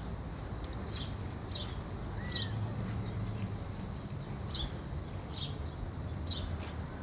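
A songbird repeating short, high chirps that drop in pitch, about six of them roughly a second apart, with one lower arched note a little over two seconds in, over a steady low rumble.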